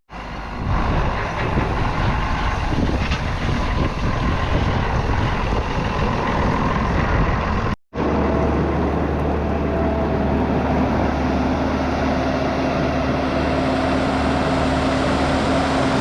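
Farm machinery engine running steadily, with gusty wind noise in the first half. After an abrupt cut about eight seconds in, an engine carries on at an even, unchanging pitch.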